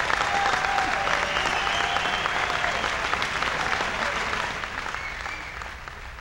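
Concert audience applauding after a rock song has ended, with a few voices calling out over the clapping; the applause dies down steadily toward the end.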